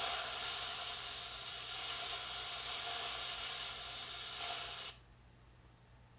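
Electric welding arc on steel, hissing and crackling steadily, then cutting off suddenly about five seconds in as the weld stops.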